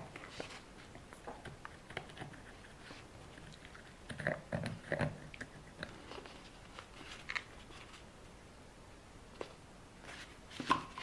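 Quiet hand-handling noises: scattered soft clicks and crinkles as a rubber RC car tyre, its wheel and a tube of gel glue are worked by hand, busier about four seconds in and again near the end.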